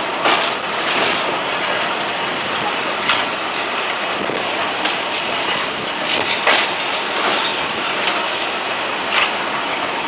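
Diesel railcar train running along the track: a steady rolling noise with a few sharp knocks and brief high-pitched squeals from the wheels.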